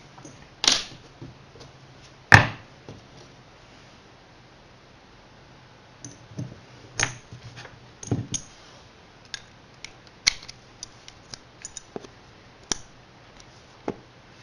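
Hand tools and small metal parts being handled during work on a Tomos moped clutch: scattered clicks and knocks, one sharp clank about two seconds in, then a run of lighter clicks from about six seconds on.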